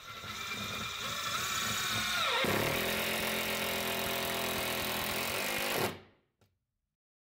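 Makita TD110D 10.8 V cordless impact driver driving a long screw into particle board: the motor first whines steadily. About two and a half seconds in the pitch drops and the impact mechanism hammers rapidly as the screw meets resistance. The driver stops suddenly about six seconds in.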